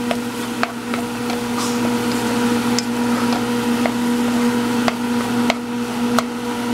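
Wooden spatula stirring khoya into onion-tomato masala in a nonstick frying pan: a light sizzle with scattered clicks of the spatula against the pan, over a steady hum.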